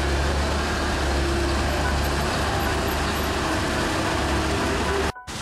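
Steady low rumble of street traffic, cut off abruptly near the end.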